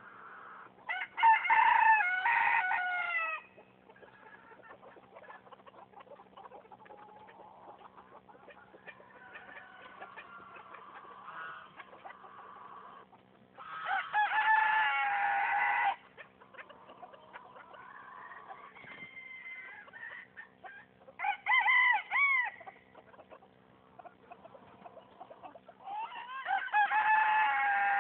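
Chickens: a rooster crows four times, each crow about two seconds long and the loudest thing heard, with quieter clucking in between.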